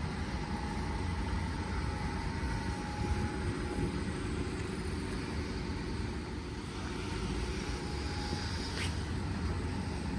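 A standing Zurich Tram 2000 tram with its on-board equipment running: a steady low hum and rumble with a faint steady whine.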